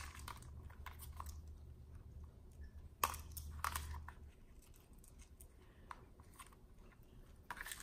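Faint clicks and small handling noises of items being picked up and set down, with a sharper click about three seconds in, over a low hum that stops about four seconds in.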